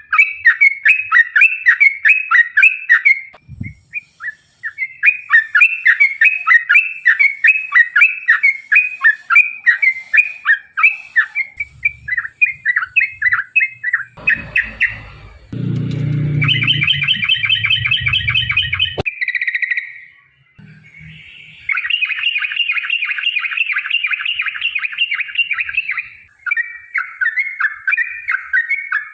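Yellow-vented bulbul (trucukan) singing long, rapid chattering rolls of repeated notes. Near the middle there is a brief low rumble and a faster, tighter trill that cuts off abruptly, then a short pause before the chatter picks up again.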